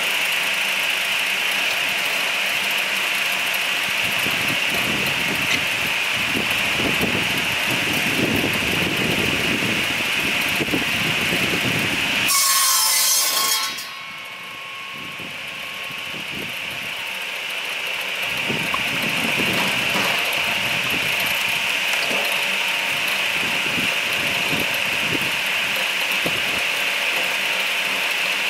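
Firewood saw-and-splitter machine running, its saw cutting into a log with a steady high whine. About twelve seconds in, a loud rushing burst lasts just over a second. The machine then drops quieter and builds back up over about five seconds.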